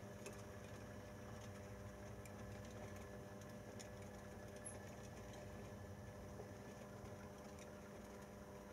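Märklin E44 model electric locomotive running slowly with its coaches, a faint steady motor hum with a few soft clicks from the wheels on the track.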